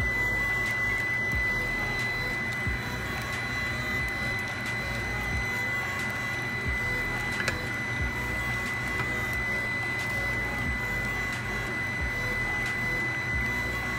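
Pot of instant noodles at a rolling boil, bubbling steadily while tongs stir through them, with a few light knocks of the tongs against the pot. A constant high-pitched whine runs under it.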